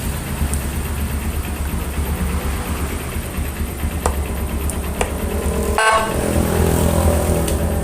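Vehicle engine idling with a steady low rumble. About six seconds in, a Whelen Alpha siren module gives a sudden horn-like blast, and a pitched tone carries on after it.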